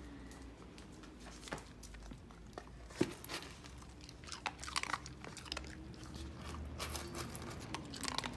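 Corgi crunching and chewing dry kibble from a stainless steel bowl, in repeated quick bursts from about four seconds in. A sharp knock about three seconds in, the loudest sound, as the metal bowl goes down on the floor.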